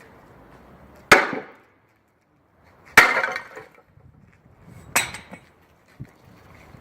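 A sink built to sit over a washing machine being struck hard in a crash test: three loud sharp impacts about two seconds apart, each with a short clattering ring, then a small knock near the end.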